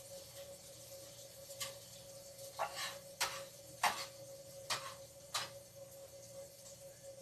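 A cooking utensil knocking and scraping against a pan on the stove: about six short, sharp clicks spread over a few seconds, over a faint steady hum.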